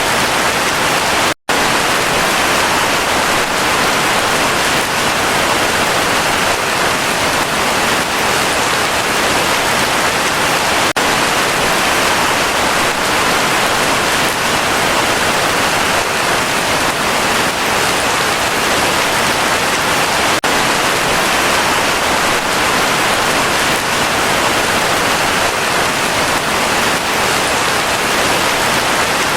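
Heavy rain falling steadily, a dense, even hiss. The sound drops out briefly about a second and a half in.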